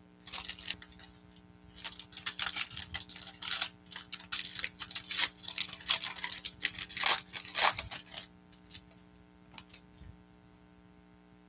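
Foil trading-card pack being torn open, its wrapper crinkling in a dense run of crackles for about eight seconds, followed by a few faint ticks.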